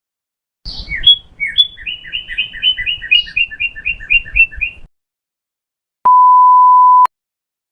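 Bird chirping sound effect: quick two-note chirps repeated about five times a second for around four seconds. Then a single steady one-second beep, like a censor bleep, near the end.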